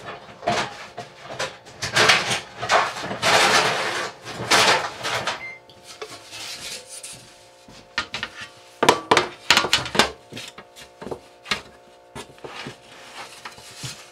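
Hands working dough and kitchen things on a countertop: long rubbing and scraping sounds in the first few seconds, then a run of sharp knocks and clatters past the middle, over a faint steady hum.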